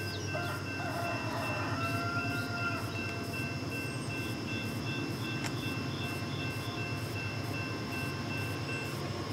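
Railroad grade-crossing bell ringing steadily while the crossing gates come down, with a rooster crowing once for about two seconds near the start. A steady low rumble runs underneath.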